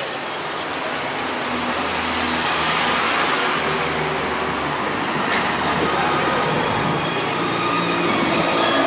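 City street traffic going by, with a vehicle engine running close by for several seconds in the middle.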